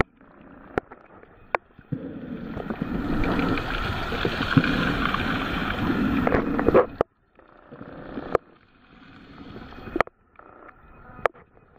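Muffled underwater sound from a camera submerged in shallow sea water: a rushing wash of moving water, louder for several seconds in the middle, with a few sharp clicks and two brief cut-outs.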